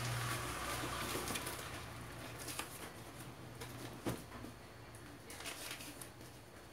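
Room hiss with a low hum at first, broken by faint scattered clicks and light rustles, with one sharper knock about four seconds in.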